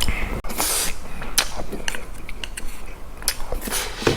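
Eating utensils clicking and clinking against dishes in a series of sharp, scattered clicks, with a brief rustle about half a second in.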